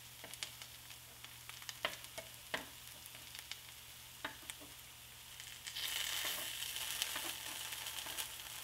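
Butter sizzling quietly in a skillet as bread roll-ups fry, with scattered sharp clicks. The sizzle turns louder and brighter for the last few seconds as the roll-ups are turned with tongs to brown another side.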